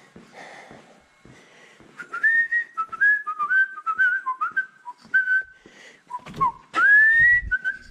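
Someone whistling a tune: a run of short notes stepping up and down, starting about two seconds in, with one longer rising note near the end.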